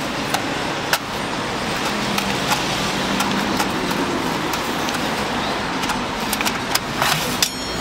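Steady street background noise, with scattered light clicks and knocks as roasted sweet potatoes are handled on the metal tray of a drum roaster. A quick run of clicks comes near the end.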